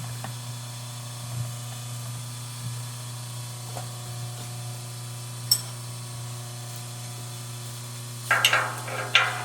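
Workpiece being unclamped and taken off a milling machine: a few light clicks and one sharp click about five and a half seconds in, then a short clatter near the end, over a steady low hum.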